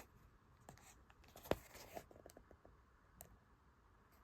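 Near-quiet handling of a small box and its packaging, with a few faint clicks and taps. The sharpest click comes about one and a half seconds in, followed by a short run of small ticks.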